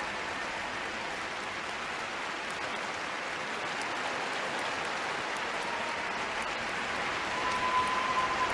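Large arena crowd applauding steadily at the end of a figure skating programme.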